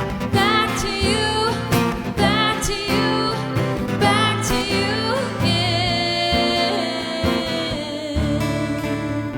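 Acoustic country song: strummed acoustic guitar under a lead melody with vibrato. The lead drops out about eight seconds in, leaving the guitar.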